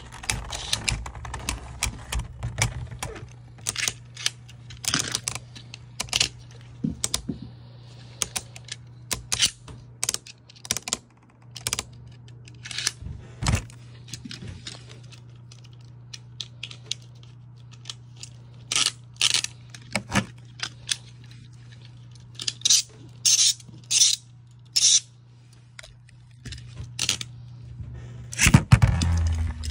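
Sharp plastic clicks and clacks at irregular intervals, over a steady low hum. In the first few seconds Beyblade Burst tops spin and clash in a plastic stadium. After that, with the stadium empty, the clicking goes on as the plastic tops and parts are handled.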